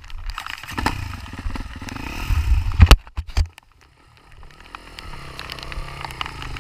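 Off-road motorcycle engine running and revving up, with a sharp loud knock about three seconds in; the sound drops away briefly, then the engine is heard again, its pitch gliding up and down.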